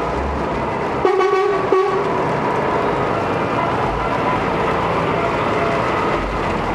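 Articulated lorry driving past with its diesel engine running, sounding its horn once: a short blast lasting under a second, about a second in.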